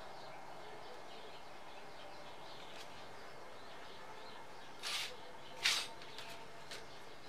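Handling noise from an amplifier circuit board being moved about on a table: two short scraping knocks about five seconds in, then a few light clicks. Faint birds chirp in the background.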